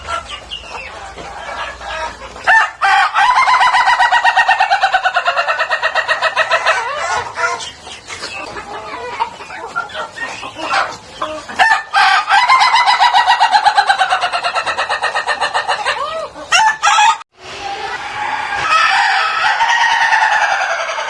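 Ayam Ketawa (laughing chicken) rooster crowing: three long crows, each a rapid stuttering run of notes that slowly falls in pitch, with short calls between them.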